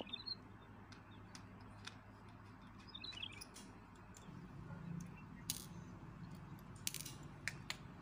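Small sharp clicks and taps of a screwdriver and fingers handling the plastic case and circuit board of an opened digital multimeter, mostly in the second half, over a low steady hum.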